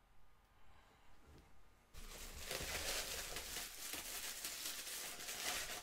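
Crinkly packaging being handled and unwrapped from a statue part. Faint clicks at first, then about two seconds in a dense crinkling and rustling starts abruptly, runs steadily and cuts off suddenly near the end.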